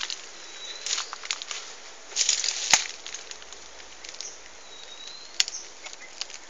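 A bird fluttering and rustling at its nest, in short irregular bursts, with a sharp click about midway and another later, and two faint high thin chirps.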